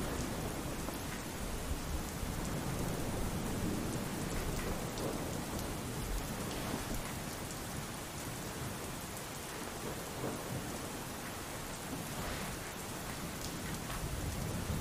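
Steady pouring rain, with a low rumble of thunder underneath.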